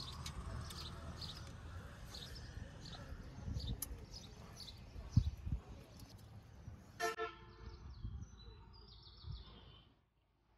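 Low background rumble with faint high chirps repeating every fraction of a second, then a short horn toot about seven seconds in that tails off; the sound fades away near the end.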